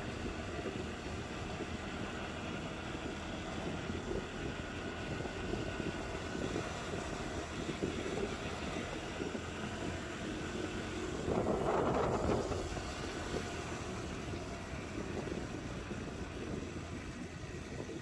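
Motorcycle engine running steadily while riding along, mixed with road and wind noise. A louder swell rises about eleven seconds in and fades after a second or so.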